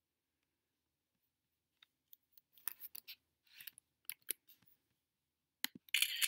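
A string of irregular clicks and short scraping noises, loudest in a close cluster near the end, like handling noise at a computer.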